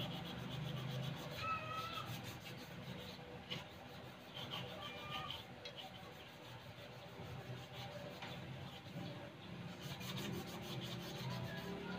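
Quiet steady low rumble of a gas stove burner heating a pan of cooking oil, which is not yet hot enough to sizzle. A few short high-pitched animal calls sound in the background, the clearest about a second in.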